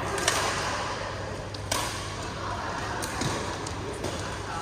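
Badminton rackets striking a shuttlecock during a rally: three sharp hits roughly a second and a half apart, the third weaker.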